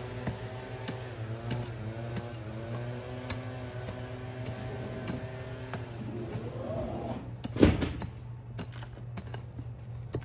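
Pick mattock and shovel digging a shallow trench in dirt and fine tree roots: repeated sharp strikes, with one loud hit about three-quarters of the way in. A steady low hum and a droning tone that shifts pitch in steps run beneath, the tone ending in a short upward glide just before the loud hit.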